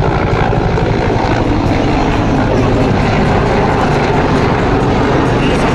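AH-1 Cobra attack helicopter flying past with its rotor beating, under a loud, steady drone of aircraft engines.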